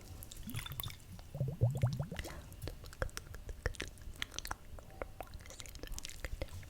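Close-miked ASMR mouth sounds: wet tongue clicks and lip smacks, with a denser squelchy run about a second and a half in.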